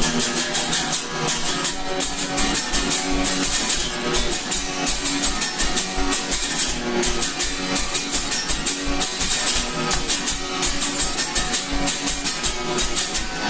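Instrumental music: guitar over a steady, quick beat of drums.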